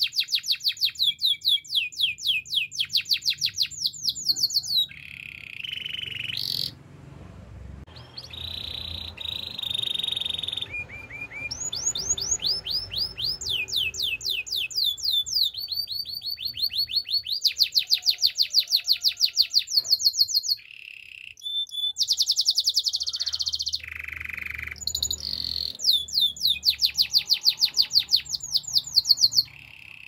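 Domestic canary singing a long song of fast trills, each a run of rapidly repeated high notes, mixed with a few steady buzzy notes and broken by brief pauses.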